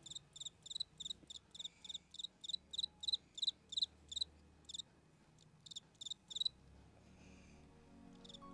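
Faint cricket chirping in short, regular high-pitched chirps, about three or four a second, pausing briefly and falling silent about two-thirds of the way through.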